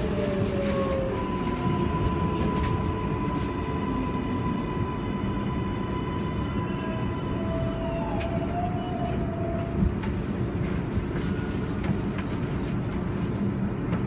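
R142A subway train pulling into a station and braking to a stop: steady rumble of wheels and running gear under thin electric propulsion whines, one held steady and a lower one that wobbles and dies away about two thirds in, leaving the car standing with a steady hum.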